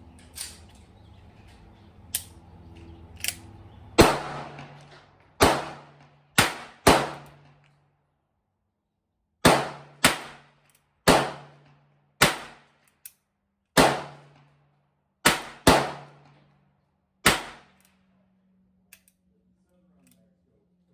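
A string of gunshots, each a sharp crack with a short echoing decay: a few fainter shots at first, then about a dozen loud shots at uneven intervals of half a second to two seconds, stopping a few seconds before the end.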